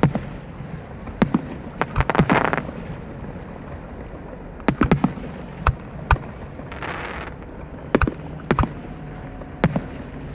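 Aerial fireworks shells bursting in a display: about ten sharp bangs at irregular spacing, some in quick pairs.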